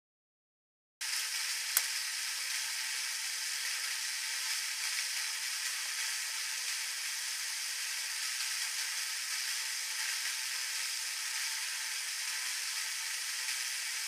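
Steady, even hiss of background noise that starts abruptly about a second in, with a single sharp click shortly after it begins.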